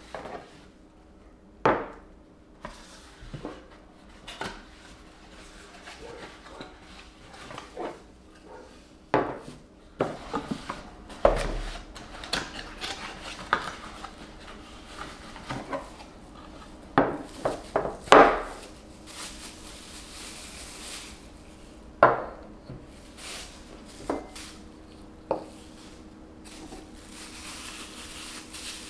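Glass storage jars and bamboo lids being unpacked and set on a tabletop: scattered clinks and knocks of glass and wood, a few of them sharp, with rustling of cardboard boxes and plastic wrap in the middle stretch.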